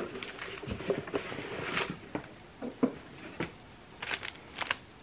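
Paper packaging rustling and crinkling in short spells, with a few light taps, as a small advent gift bag is handled and opened.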